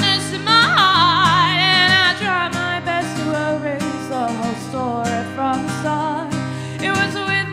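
A woman singing live with an acoustic guitar: about half a second in she rises into a loud held note with vibrato lasting about a second and a half, then goes on with softer wordless sung lines over the strummed guitar.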